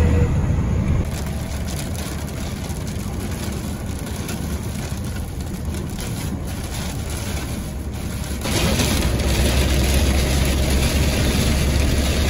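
A truck driving, heard from inside the cab: a steady engine and road drone under a hiss of rain on the windshield and body. The drone drops back about a second in and grows louder again about eight seconds in.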